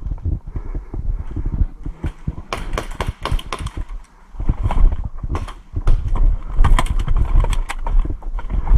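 A string of sharp, irregular clicks and knocks over a constant low rumble, growing denser from about two and a half seconds in.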